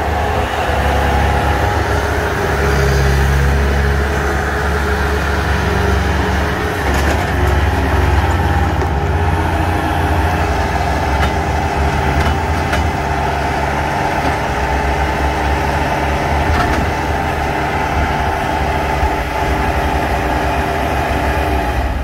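Bobcat S300 skid steer's diesel engine running steadily under load as the machine drives and turns on dirt, with a steady whine over the engine note. The engine swells a few times as the revs and load change.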